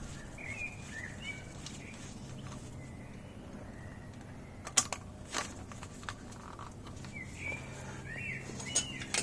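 A small bird chirping in short rising and falling phrases early on and again near the end. A few sharp clicks come in between, the loudest about halfway through, from metal fork parts being handled.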